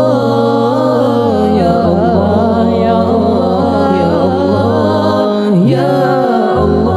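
Men's a cappella vocal group singing a shalawat, a devotional song. Several voices slide and waver through a long melodic line over a low, held bass part that changes pitch a few times.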